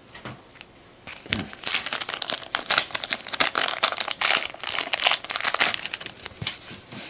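Packaging crinkling and rustling in irregular crackles as trading cards are taken out and handled. It starts faintly and gets busier from about a second in.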